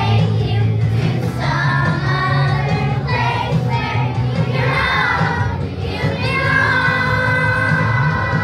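A choir of young children singing together over backing music with a steady low bass line.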